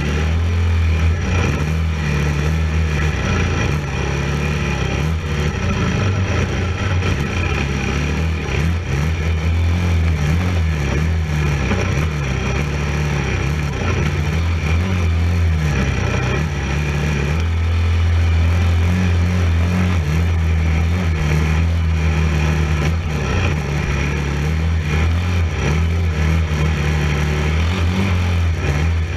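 Racing quad (ATV) engine running under throttle, its pitch stepping up and down as the rider works the throttle and gears, over a constant rush of noise.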